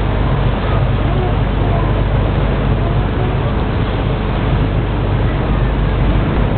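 A motorboat's engine running steadily under a constant rush of wind and water.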